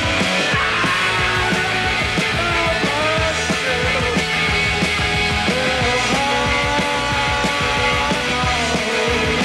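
Post-punk band playing live: electric guitar and synthesizer notes held over a steady drum beat.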